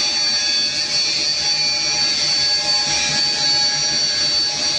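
Steady whirring of an automated PCB-processing machine as its head works over a panel of circuit boards, with a high, even whine over the noise.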